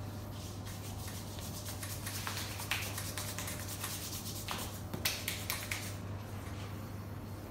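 Massage: hands working quickly and rhythmically over skin and clothing in a run of rapid short strokes, with a few louder sharp taps about five seconds in.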